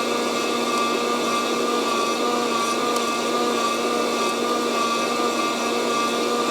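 Fresh Roast SR 800 hot-air coffee roaster running: its fan blows a steady whirring whine with a constant hum through the bean chamber, late in the roast past first crack.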